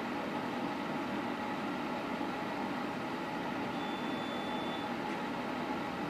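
Electric space heater running with a steady fan whir and a faint hum, the heater switched on at full heat.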